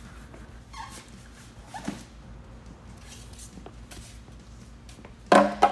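Cardboard packing strips and styrofoam blocks being handled and lifted out of a grill's shipping box: soft scrapes and rubs, with a brief loud burst near the end.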